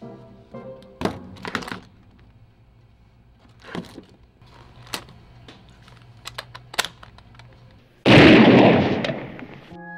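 A few scattered clicks and knocks, then about eight seconds in a loud, sudden bang that dies away over about a second and a half.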